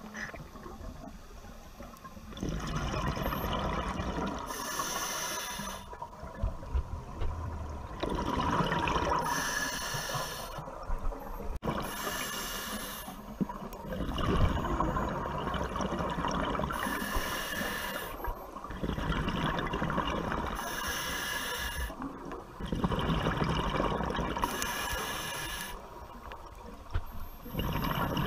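Scuba breathing heard underwater: a hiss as air is drawn through the regulator, alternating with a longer rush of exhaled bubbles, repeating every few seconds in a steady breathing rhythm.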